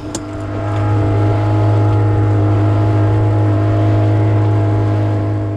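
Boat's outboard motor running with a steady, even drone, growing louder over the first second and then holding at a constant speed.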